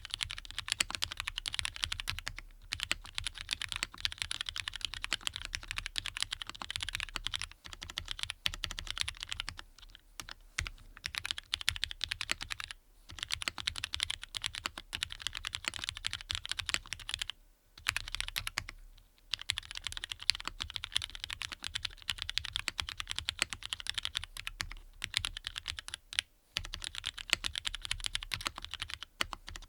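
Continuous fast typing on a Matrix Lab 8XV 3.0 mechanical keyboard with lubed Cherry MX Black linear switches in an aluminium plate: rapid runs of key clacks, broken a few times by brief pauses.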